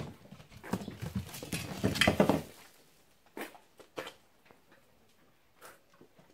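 Rustling and scraping among straw and clutter for about two and a half seconds, loudest near the end of that stretch, followed by a few scattered light knocks.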